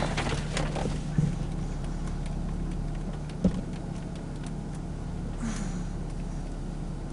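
Steady low drone heard inside a car's cabin, with a single sharp knock about three and a half seconds in.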